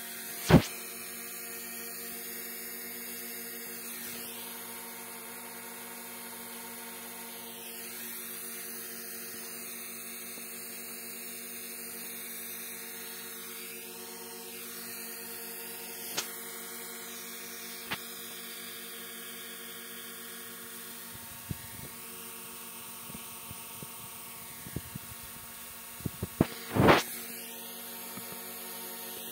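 DJI Mini 3 Pro hovering low overhead: its four propellers make a steady hum of several tones, with a higher whine that wavers as the motors adjust. A sharp knock about half a second in is the loudest sound, and more knocks and bumps come near the end.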